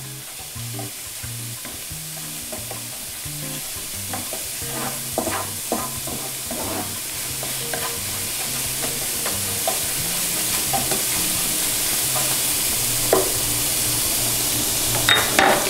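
Minced garlic sizzling in olive oil in a nonstick frying pan, stirred with a spoon that scrapes and taps against the pan now and then. The sizzle grows steadily louder as the garlic fries toward golden.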